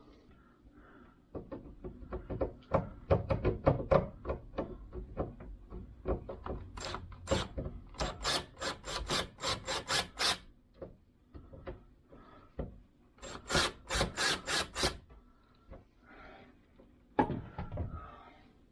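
Rapid, rhythmic scraping on wood at about four strokes a second, in a long run and then a shorter one, made while a door-knob drilling jig is being adjusted and set on a wooden door.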